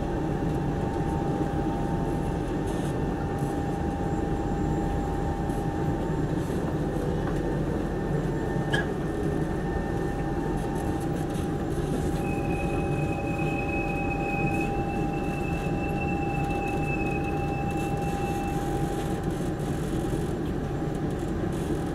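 Interior running noise of a Singapore MRT East-West Line train car: a steady rumble with a constant electric whine. A thin, high squeal holds for about six seconds past the middle.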